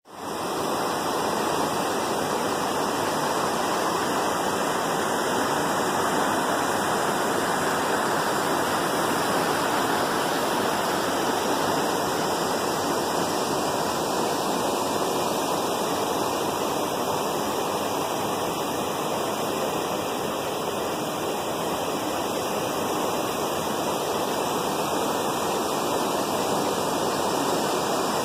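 Steady rushing water noise, as from a sea or waterfall ambience track, at one even level with no rise and fall of breaking waves. It comes in abruptly at the start.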